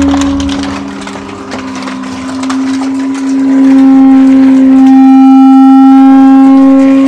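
Hydraulic power pack of a PET bottle baler running: electric motor and hydraulic pump giving a loud, steady whine. It drops a little in pitch and level about a second in, then comes back louder and steady from about three and a half seconds.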